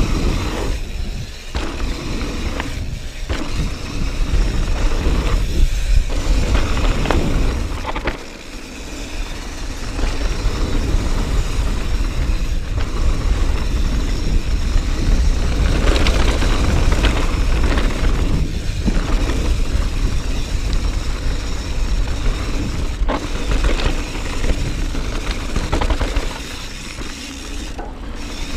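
Mountain bike riding fast down a dirt and gravel trail: tyres crunching over the ground, with sharp knocks and rattles from the bike over bumps. A heavy low wind rumble runs underneath, briefly easing about eight seconds in.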